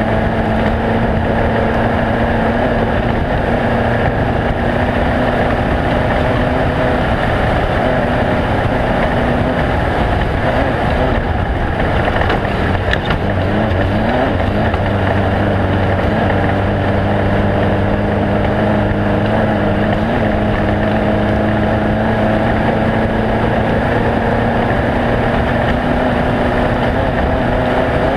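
Engines running steadily: a loud, unbroken drone with several held tones that shift slightly in pitch now and then.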